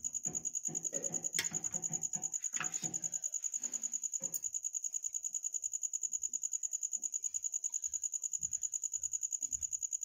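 Handling sounds as steamed idlis are lifted by hand off an aluminium idli plate into a steel pot, with two sharp metal clinks in the first half. A steady high-pitched trill with a fast regular pulse runs underneath throughout.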